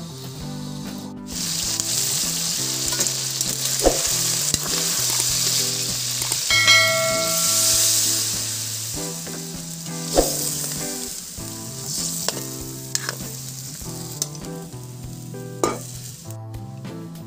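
Chicken feet and ginger sizzling in hot oil in a wok, with a few sharp knocks of a utensil against the pan. The sizzle swells about seven to eight seconds in as liquid is poured into the wok, then dies down. A short chime rings out just before that.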